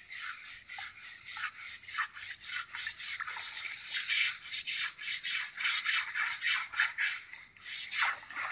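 Scrubbers rasping over an elephant's wet hide in quick, repeated strokes, several a second, growing louder about two seconds in.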